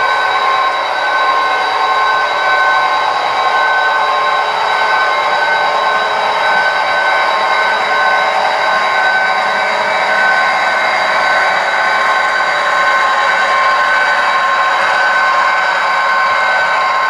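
HO scale model freight train rolling past: a steady whir of wheels running on the track, with a faint steady whine over it.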